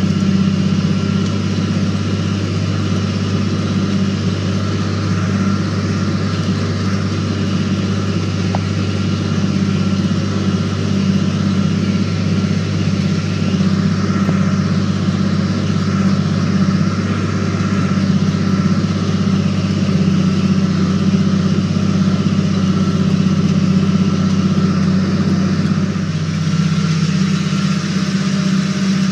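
Tractor's diesel engine running steadily under load while pulling a field cultivator, heard from inside the cab as an even, unchanging drone.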